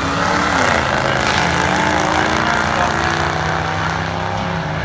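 Two drag-racing cars' engines pulling hard down the strip just after launch, their pitch shifting as they accelerate.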